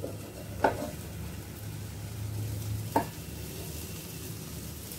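Spiced peas sizzling faintly in a frying pan as a wooden spatula stirs them, with two sharp knocks of the lid and spatula against the pan, about half a second and three seconds in. The peas are cooking down on low heat until all the water has dried off.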